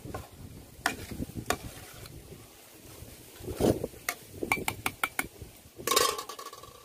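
Metal slotted ladle stirring rice in a large aluminium pot, clinking and scraping against the pot's sides and rim. It gives scattered clinks, a quick run of taps about four to five seconds in, and a louder clang with a short ring near the end.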